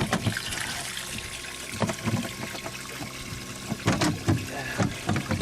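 Water pouring and trickling steadily into a fishing boat's live well from its pump, with a few knocks on the boat as the fish is handled and measured.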